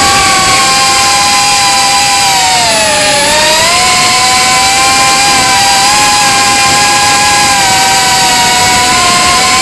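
Reptile Cloud 149 V2 FPV drone's brushless motors and propellers whining steadily at a high pitch. The pitch dips about three seconds in and climbs back as the throttle eases and returns. This is the sound the uploader calls strange.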